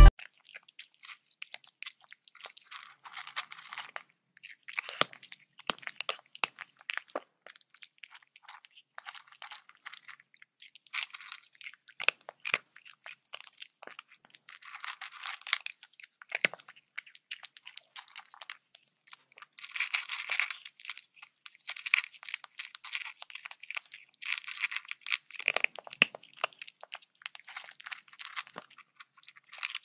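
Leopard chewing and crunching on a raw chicken carcass, bone and flesh cracking in irregular bouts of crunches, busier in the last third.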